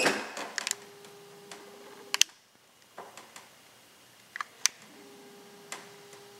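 Scattered clicks and light knocks from footsteps on a hard floor and handling in a small empty room, the sharpest near the start and about two seconds in. A faint steady hum comes and goes twice.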